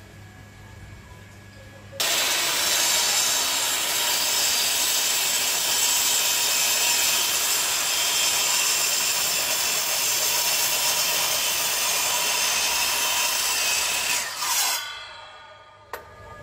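INGCO sliding miter saw running and cutting through wooden blocks. The loud, steady saw noise starts suddenly about two seconds in and fades out a couple of seconds before the end as the saw winds down, followed by a single click.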